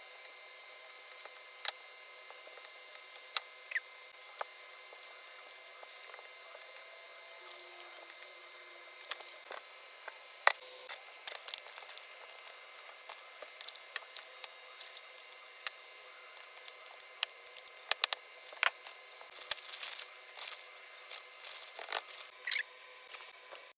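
Kitchen knife cutting through a block of cheese and tapping on a plastic cutting board, a few sharp clicks several seconds apart. From about nine seconds in, a busy run of clicks and crinkles as cheese cubes and other ingredients go into a foil pan.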